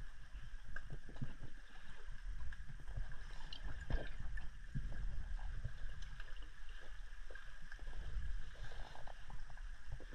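Underwater sound picked up through a camera's waterproof housing: a low, muffled rumble of moving water with scattered small clicks and knocks.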